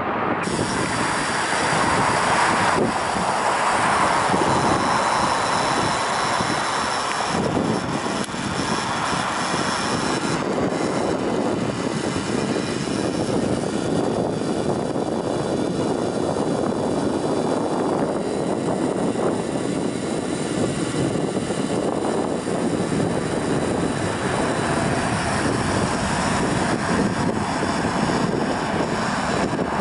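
Jet airliner engines running loud and steady on the runway, with a high fan whine above the rumble: first a Boeing 737 MAX, then a Boeing 787 from about ten seconds in.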